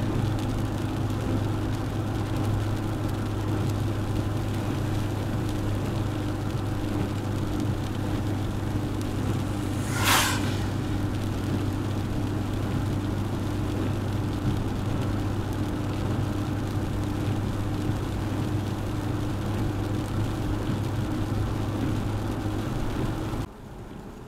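Suzuki Jimny driving at a steady pace, its engine hum and road noise heard from on board. A brief sharp noise comes about ten seconds in, and the sound drops off suddenly near the end.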